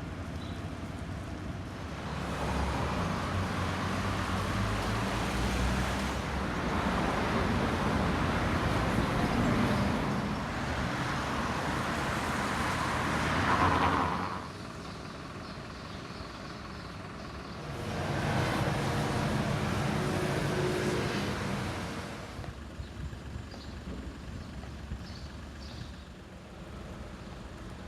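Traffic on rain-wet city streets: vehicles pass with a hiss of tyres on the wet road. One long pass builds and cuts off about halfway through, and a second one follows a few seconds later, over a steady background of rain.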